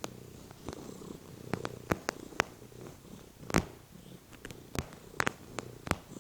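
House cat purring steadily, with a string of sharp clicks or taps over it.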